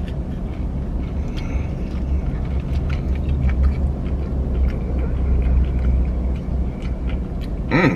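Low, steady rumble of an idling vehicle engine heard from inside the truck's cab, with a few faint clicks over it.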